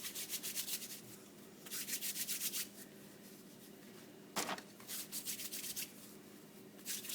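Floured hands rolling and rubbing biscuit dough into strips, a dry rasping in quick rhythmic strokes that come in several bursts of about a second each, with one short knock about halfway.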